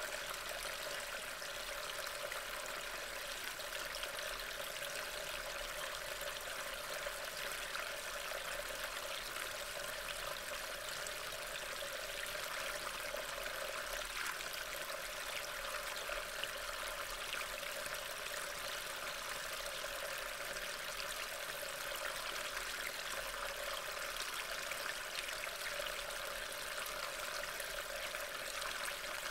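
Steady rain: an even hiss with many small drop ticks.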